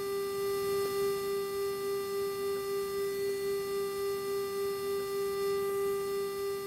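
Steady electrical hum from the Boeing 767-300's cabin PA line after the announcement ends: one unchanging mid-pitched tone with a row of overtones above it, wavering slightly in loudness. It sits at the pitch of the aircraft's 400 Hz electrical power, which leaks into the PA system.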